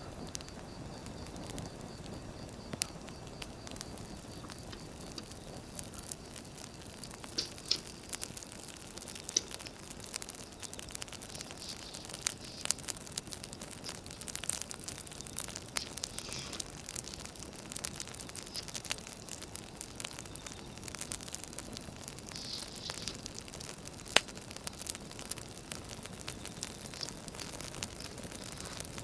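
Wood fire crackling, with sharp pops scattered irregularly throughout and one loud pop near the end. Now and then there are short bursts of paper rustling and crinkling.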